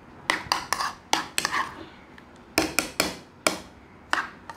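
Metal spoon stirring a creamy marinade in a ceramic bowl, clinking against the bowl's side in about ten sharp knocks that come in short clusters.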